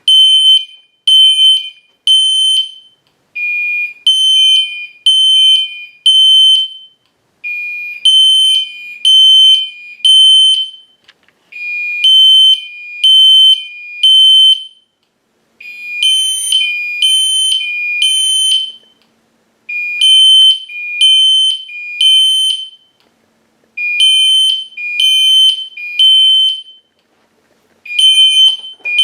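Two fire alarm horns sounding together in the temporal code 3 pattern: a System Sensor P2RL horn strobe on its 3.3 kHz tone and a Gentex Commander 3 horn on a lower 2,400 Hz tone. Three loud pulses about a second apart, the group repeating about every four seconds.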